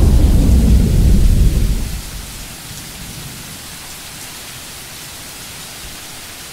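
Thunder rumbling low and loud, dying away about two seconds in, leaving the steady hiss of rain.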